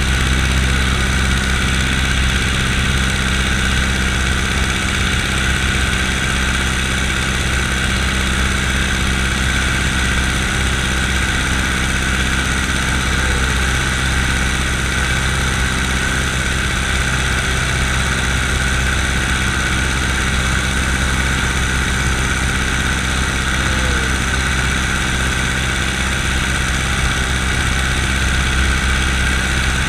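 Biplane's radial engine running steadily in flight, with a constant rush of air over the microphone.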